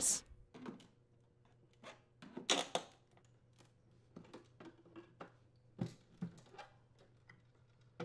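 Flathead screwdriver and hands working the plastic retaining tabs of a microwave door's inner panel: a scattered series of small clicks and taps, the loudest cluster about two and a half seconds in, as the tabs are pressed and the inner panel loosens from the outer panel.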